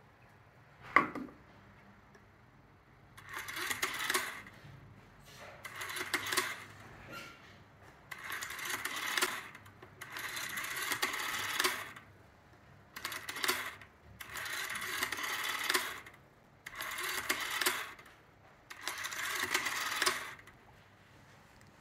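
Kirk F61 rotary telephone dial being wound and whirring back, digit after digit, about eight times with short pauses of varying length as a number is dialled. A sharp click about a second in.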